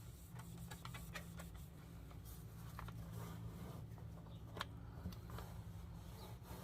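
Faint scattered clicks and light rattles of hand tools being handled, over a steady low hum.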